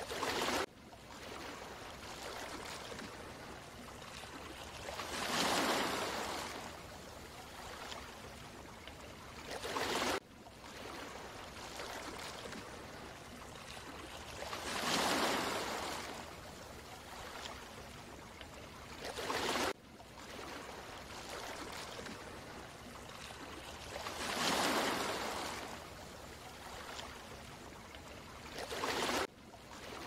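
Gentle sea waves lapping and washing, with a broad swell that rises and fades, then a shorter surge that cuts off suddenly. The same wash repeats about every nine and a half seconds, three times over.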